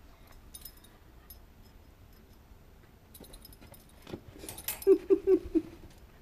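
Border terrier whimpering: four short whines in quick succession about five seconds in, after a stretch of light clicking and rattling. He is whining at being kept out of his own bed, where the kitten is lying.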